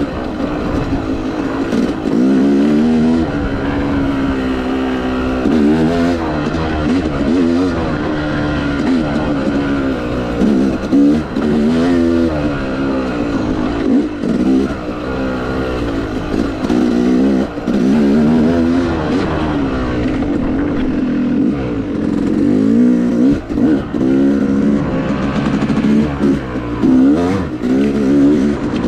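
Yamaha YZ250X two-stroke dirt-bike engine under hard riding, its pitch rising and falling every second or two as the throttle is worked, with a few brief drops when the throttle is chopped.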